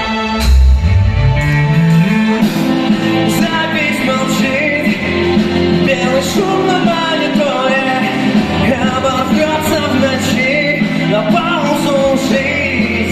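Rock band playing live with a singer over drums and amplified instruments; a low note slides upward in the first couple of seconds before the song settles into its beat.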